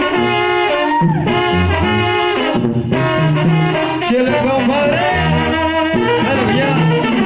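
A Mexican banda plays live: trumpets and trombones play the melody in unison over a sousaphone bass line, with clarinets in the band. The music is loud and continuous, with the bass note changing every half second or so.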